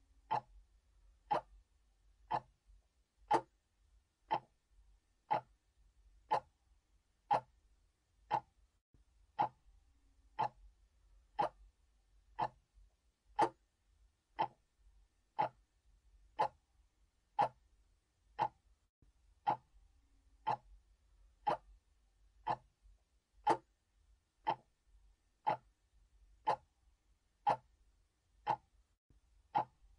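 Mechanical clock ticking steadily, about one tick a second, with alternating louder and softer beats in a tick-tock rhythm.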